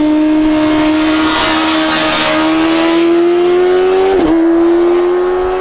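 Inline-four sport bike engine screaming at high revs, the classic high-pitched inline-four sound. Its pitch climbs steadily, with a brief dip about four seconds in before it climbs again.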